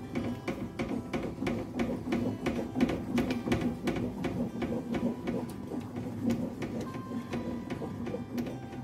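A wooden masher churning a thick mash of boiled barley, lentils and rice in a metal pot: quick, regular knocks of the wood against the pot, about three or four a second, over a steady low hum.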